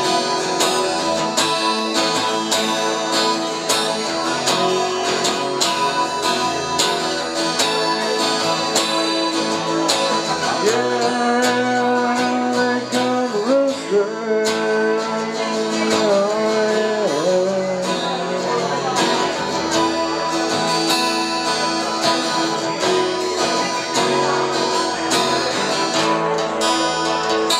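Acoustic guitar strummed steadily, with a man singing over it for several seconds in the middle.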